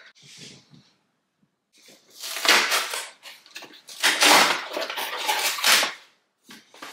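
Packaging being handled and rustled, in two noisy stretches, one about two seconds in and a longer one about four seconds in.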